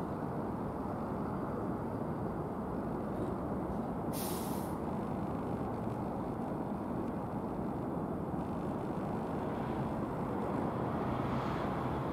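Steady rumble of an Airbus A319-111's CFM56 jet engines in flight, growing slightly louder near the end. A short, sharp hiss cuts in about four seconds in.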